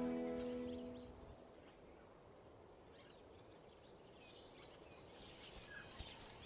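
Music fading out in the first second, then faint natural bush ambience with a few soft bird chirps near the end and a single click about six seconds in.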